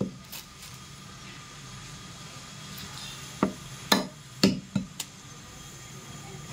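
Butcher's cleaver chopping goat bone and meat on a chopping block: one sharp strike at the start, then after about three seconds a quick run of five strikes about half a second apart.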